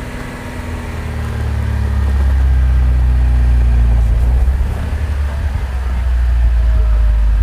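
A vehicle engine running, its deep drone growing louder over the first two or three seconds, easing briefly about five seconds in, then rising again.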